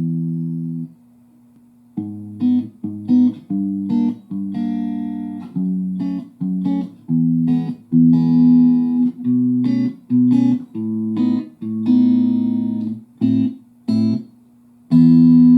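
Electric guitar played through a valve amplifier with 6V6-type output tubes, a 6P6S or 6V6GT in the sound comparison. A ringing chord stops about a second in, then after a short pause comes a run of chords and single notes, and near the end a new chord is struck and rings out.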